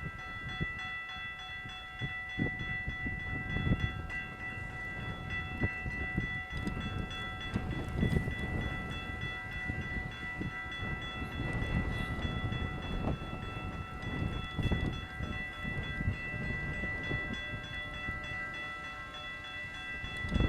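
A CN freight train rolling past with an uneven low rumble that swells every few seconds. A steady chord of high tones runs without a break over it.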